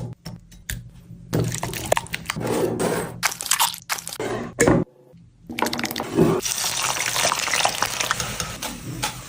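Wet squishing and crunching as food is handled while a chicken shawarma is being prepared, in short cut-together bits with a brief silent gap about five seconds in.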